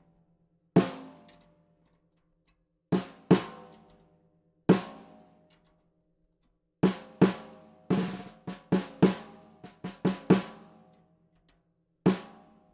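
Snare drum struck with a stick, tuned high, each hit leaving a ringing overtone. A few single hits are followed by a quicker run of about a dozen strokes, then two more near the end, as the drum is tested for ring while its side tension lugs are retuned.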